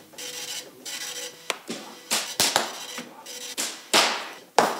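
Special-effects explosion in a CRT computer monitor: a run of sharp pops and short spark bursts, the biggest about four seconds in, then a sharp crack just before the end.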